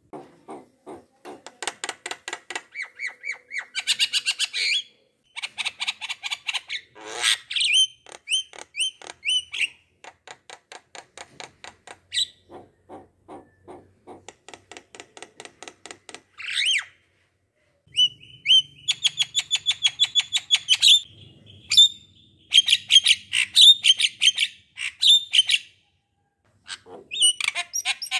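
A bird calling: rapid trilled and chattering series of chirps and squawks, broken by short pauses.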